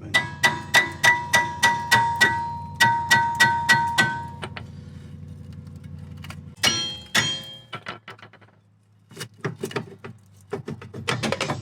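Hammer blows on a Honda CR-V rear brake disc that is stuck on the hub, being knocked loose: a quick run of strikes at about three a second with a short break, each leaving the disc ringing with a clear metallic tone. Later come two heavier knocks and then scattered lighter ones.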